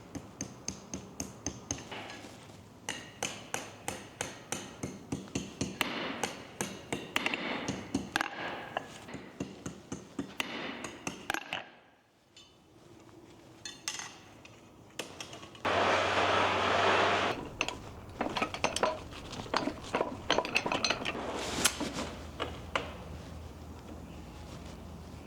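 Blacksmith's hammer striking the tip of a steel bar to curl it, at a steady pace of two to three blows a second for about ten seconds. After a short pause comes a brief burst of steady noise, then more uneven hammer blows.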